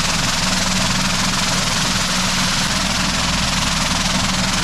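Vibratory bowl finisher running, its ceramic media churning starter drive gears under a water spray to clean and polish them: a steady, loud noise over a low hum.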